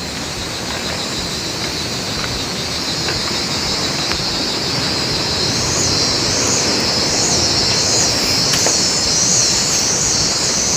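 Steady rushing of river water, growing slowly louder. From about halfway a high shrill buzzing rises and falls in waves over it.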